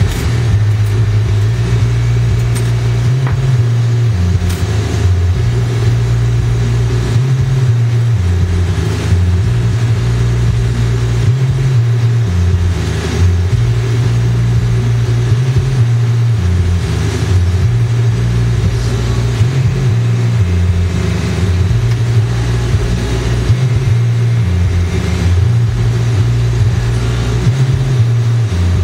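Glassblower's bench torch burning with a steady low rumble and a hiss over it, the rumble wavering slightly in pitch every few seconds.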